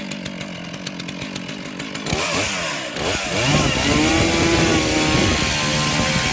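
Chainsaw idling with a regular ticking beat, then throttled up about two seconds in. The engine pitch climbs and holds at high revs.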